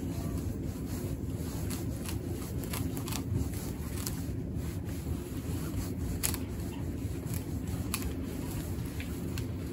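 Roots of a bare-rooted Yoshino cherry being raked out with a gloved hand and a root hook: scattered light scrapes, snaps and ticks as the roots are pulled and loose soil crumbles away. A steady low outdoor rumble runs underneath and is the loudest part.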